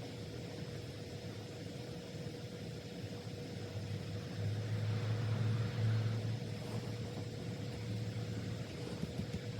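Steady background room noise with a faint constant hum, and a low rumble that swells about four seconds in and eases off near the end.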